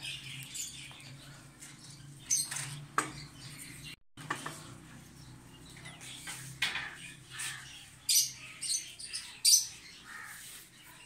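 Small cage birds in an aviary chirping in short, sharp bursts, more often in the second half, over a faint steady low hum.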